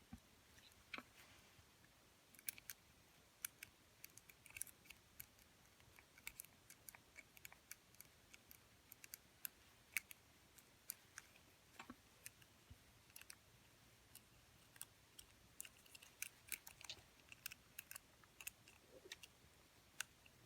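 Faint, irregular small metallic clicks and scrapes of a wire pick working the levers inside a Yale Town and Country lever padlock.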